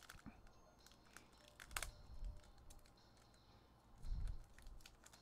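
Foil wrapper of an Upper Deck trading card pack being peeled apart and crinkled by hand: faint, scattered crackles, with a couple of dull low thumps about two and four seconds in.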